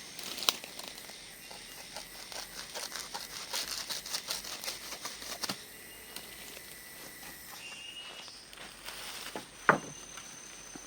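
Crackling, rustling handling noise with scattered clicks, and a sharp knock about half a second in and another near the end. Faint steady insect tones and a few short bird chirps sound behind it.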